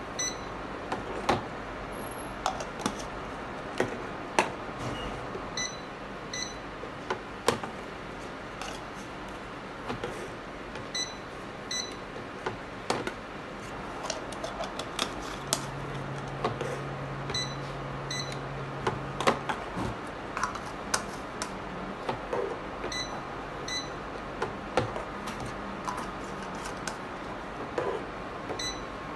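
Handheld induction cap sealer sounding short high beeps in pairs, about one pair every five to six seconds, one pair for each sealing cycle. Between the beeps come many sharp clicks and knocks of plastic jars and the sealing head being handled and set down on the hard work surface.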